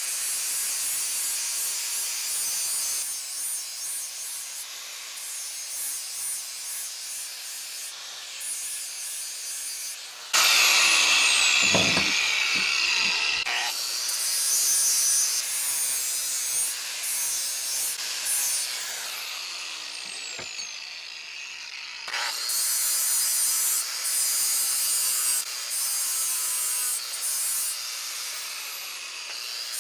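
DeWalt grinder grinding steel off an old cast bench vise, cutting down leftover weld to smooth the jaw seats. It runs steadily, with the grinding getting suddenly louder about a third of the way in and again about three quarters in as it bites harder into the metal.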